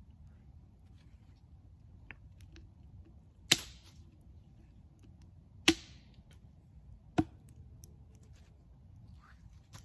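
Dry sticks snapped by hand, three sharp cracks a second or two apart, with faint twig ticks and rustling between them, as kindling is broken up for the campfire.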